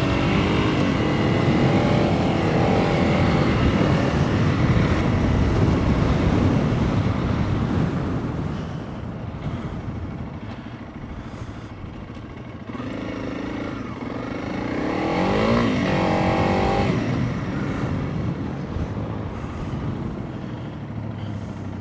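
Motorcycle engine revving and running on an off-road ride, its pitch rising and falling with the throttle. It is loud for the first several seconds, drops back, then revs up and down again about two thirds of the way in before easing off.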